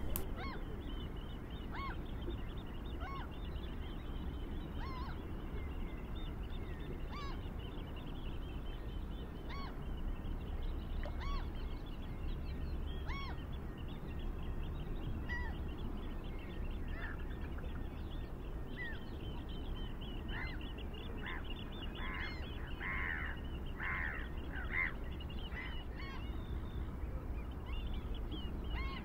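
Birds calling: a short call repeated every couple of seconds over continuous higher chirping, with a run of louder calls a little past two-thirds through, over a low steady rumble.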